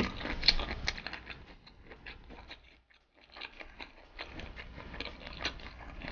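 Close-miked chewing of a mouthful of marinated shrimp and rice: small wet, clicky mouth sounds, with a short pause about halfway through.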